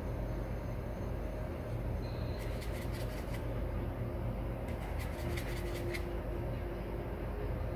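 Paintbrush strokes on canvas: two short runs of quick scratchy dabs, over a steady low hum of room noise.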